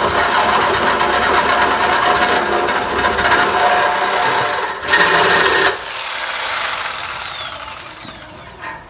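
Cordless reciprocating saw cutting through a steel exhaust pipe, a harsh rasping buzz, to cut out the resonator for a mid-muffler delete. The cutting stops about six seconds in, and a faint falling whine fades away after it.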